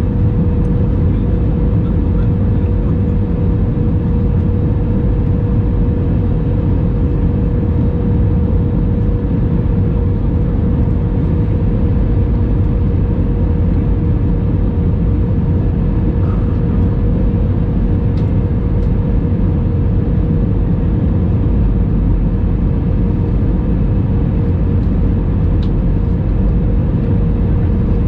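Cabin noise of an Airbus A321 on the ground after landing: steady engine and rolling rumble with a constant hum.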